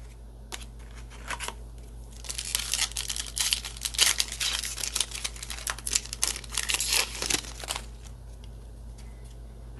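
Foil booster pack of trading cards being torn open, its wrapper crinkling and crackling for several seconds, loudest from about two to eight seconds in.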